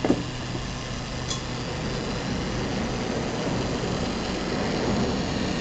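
Micromake delta 3D printer's stepper motors running steadily as the carriages drive the print head down toward the bed, to check the nozzle height during calibration. A click right at the start.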